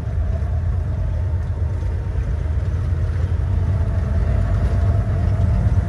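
Truck engine running with road noise while driving slowly on a dirt road: a steady low drone.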